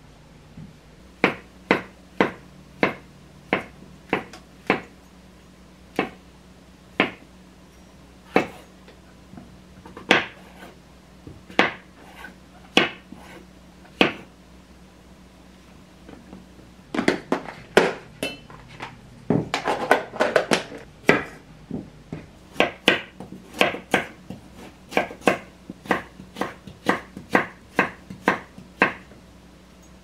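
Kitchen knife cutting mushrooms and carrot on a wooden cutting board. Separate knocks of the blade on the board, about one a second at first, then a quick run of chops past the middle, then steady chopping at about two a second.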